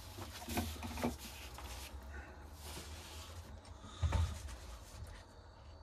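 A few knocks and light clatter of objects being picked up and set down, the loudest about four seconds in, with some rustling between, over a low steady hum.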